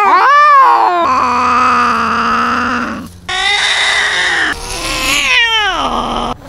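Cats yowling at each other in a territorial standoff: a run of long, drawn-out wails, one after another, with a call sliding down in pitch near the end.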